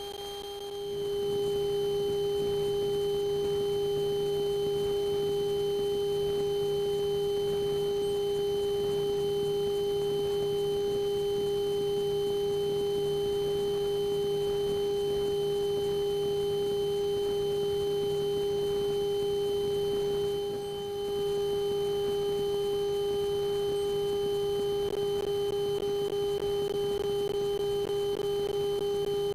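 Steady electrical whine on a light aircraft's intercom and radio audio: one unchanging mid-pitched tone with fainter overtones, over a weaker pulsing low drone. It dips briefly about two-thirds of the way through.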